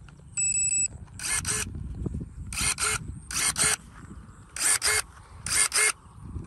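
Cordless electric pruning shears giving a quick string of short beeps as they power up, then their motor snapping the blades shut and open in short paired whirs, five times about a second apart.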